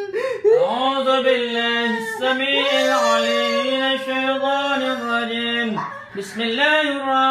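A man's voice wailing in long, drawn-out, sing-song tones, with a short break about six seconds in.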